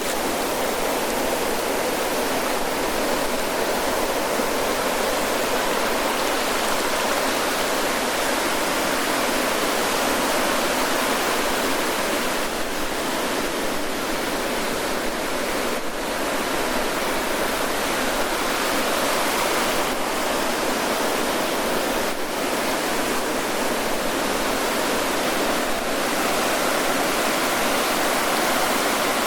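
Ocean surf washing on a sandy beach: a continuous hiss of breaking waves, swelling and easing gently without any sharp crash.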